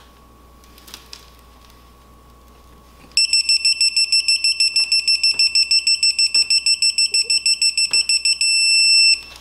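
Kobalt digital torque wrench beeping rapidly, about six high beeps a second, as the bolt is turned through its angle. Near the end the beeps merge into one steady tone, the wrench's signal that the set angle has been reached.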